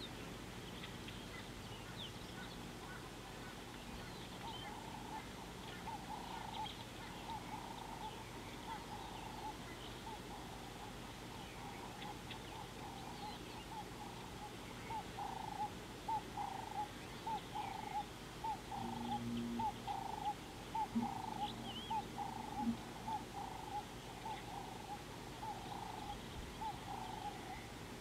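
Wild animal calls: a short mid-pitched call repeated about twice a second, growing louder toward the middle and then easing off. Faint scattered high chirps sound over it.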